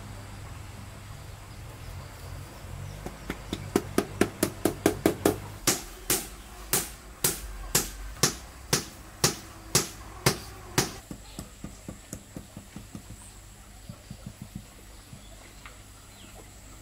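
Sharp knocks on ceramic floor tile, about two a second for several seconds, then trailing off into lighter taps: tiles being tapped down to bed them into fresh mortar.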